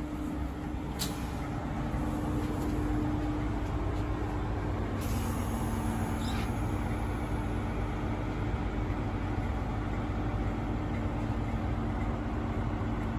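Stationary Intercity 125 (HST) train's steady idling hum, heard from inside a coach vestibule, with a sharp click about a second in.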